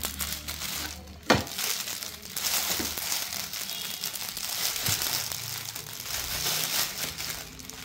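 Packaging crinkling and rustling as a folded T-shirt is unwrapped by hand, with a sharp click about a second in.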